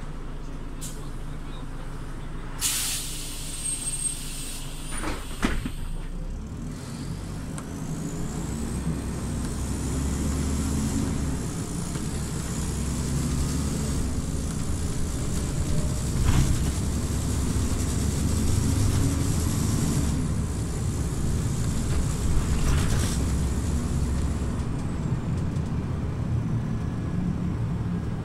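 Scania OmniLink city bus with a 9-litre diesel: a short hiss of released air about three seconds in, a few clicks, then the engine rumble building as the bus pulls away. A high whine climbs in pitch, holds steady, and falls away near the end.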